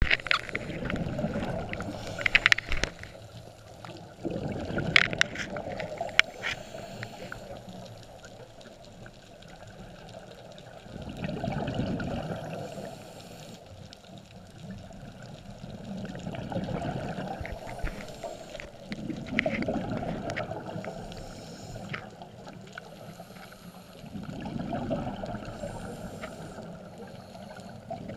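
Scuba diver breathing through a regulator underwater: slow swells of exhaled bubbles gurgling every four to six seconds, with a few sharp clicks and knocks in the first seven seconds.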